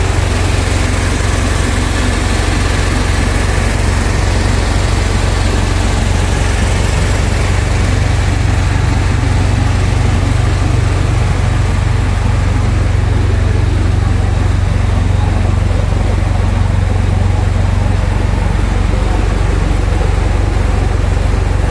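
Engine-driven screw vacuum pump skid running steadily: an Isuzu 6HH1 six-cylinder diesel belt-driving the screw vacuum pump on a test run, giving a loud, even low hum under a broad mechanical rush.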